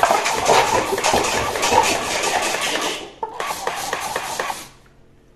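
Electric toy blaster firing a fast automatic burst of clicking shots while a stack of paper cups is knocked down and tumbles. The firing stops about three seconds in, a second, shorter burst follows, and it goes quiet shortly after four and a half seconds.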